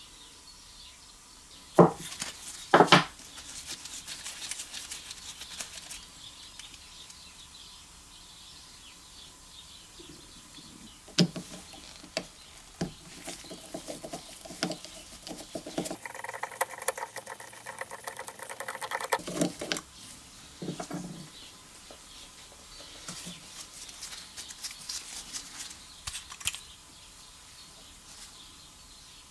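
Hand work on a cleaned aluminium small-engine carburetor: metal parts set down and knocked on a wooden bench, with two sharp knocks a couple of seconds in and scattered clicks of a screwdriver working a small screw. A little past the middle comes a pitched scraping squeak lasting about three seconds as the screwdriver turns.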